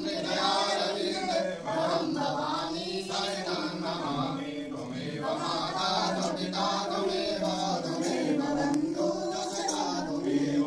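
A man chanting a Hindu aarti hymn in a slow melody that rises and falls, without break.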